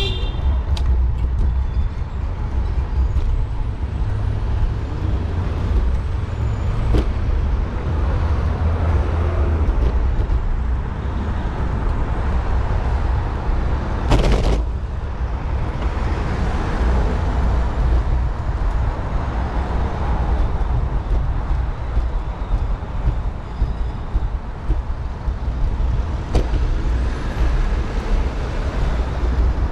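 Steady low wind rumble on a bicycle-mounted camera's microphone, with city traffic passing in the next lanes. There is a single sharp knock about halfway through.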